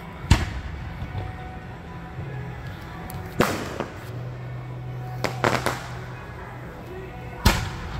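Aerial fireworks bursting overhead: a string of sharp bangs, about six in eight seconds. The loudest come near the start and near the end.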